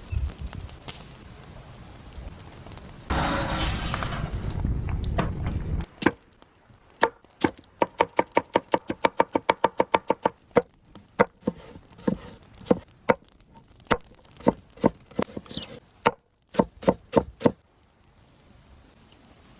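A knife chopping on a cutting board: a quick run of about four or five strokes a second, then slower, spaced strokes, each with a short ring. It is preceded by about three seconds of loud hissing noise.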